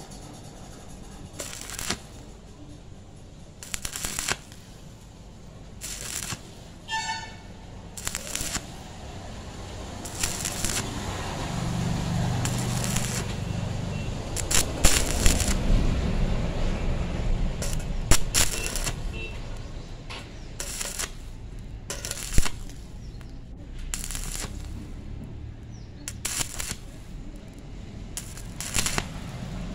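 Stick-welding arc on a steel square-tube joint: the electrode arc crackles with irregular sharp pops as the bead is run up the joint.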